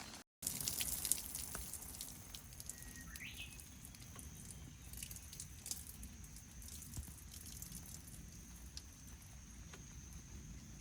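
Scattered raindrops dripping and pattering as irregular sharp ticks, over a steady thin high-pitched whine. A short chirp sounds about three seconds in.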